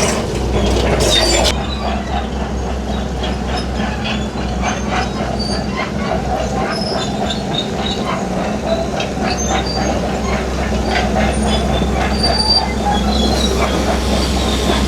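Heavy crawler bulldozer working: its diesel engine runs steadily under load while the steel tracks clank and squeal.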